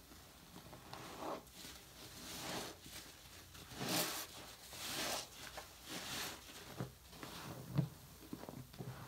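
A foamy sponge lathered with mouthwash is squeezed and kneaded in a sink of sudsy water, squelching and crackling. It comes in repeated squeezes about once a second, with a few short sharp squishes near the end.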